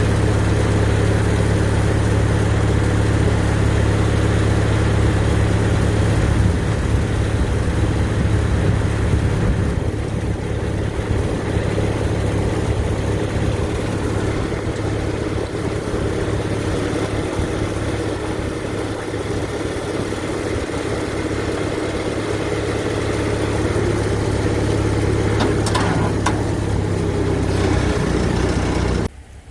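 Log skidder's diesel engine running steadily under a noisy haze, the low hum easing a little about six seconds in.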